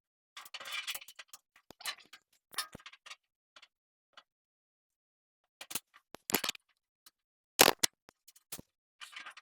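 Hard objects being handled: a string of sharp clicks, clinks and knocks with pauses between them, some scraping in the first second, and one louder knock about three-quarters through.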